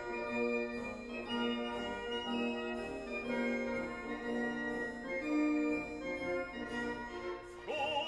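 Background music: slow, sustained organ-like chords, with a vibrato singing voice coming in near the end.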